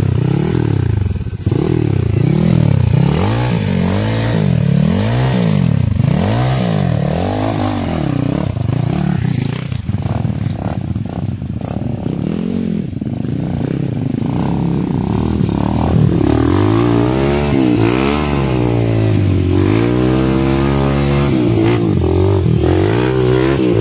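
Dirt bike engine revving up and down over and over, in short blips at first and longer, higher swells later on.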